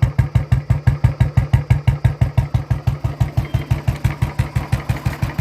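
Royal Enfield Bullet 350's single-cylinder four-stroke engine idling through a short Punjab aftermarket silencer. It gives a steady, even thump about eight times a second.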